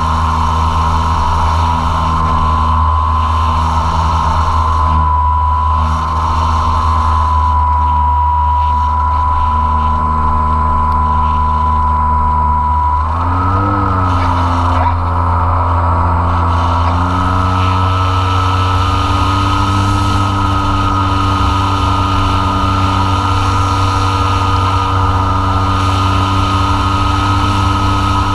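Apprentice S 15e RC plane's electric motor and propeller in flight, picked up by the on-board camera: a loud, steady whine. The pitch wobbles about 13 seconds in, then steps up slightly about 17 seconds in as the motor speeds up.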